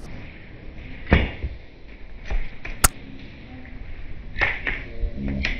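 Airsoft gunfire during a firefight: a sharp snap about a second in, a crisp crack near three seconds, and several fainter clicks of shots and BB hits.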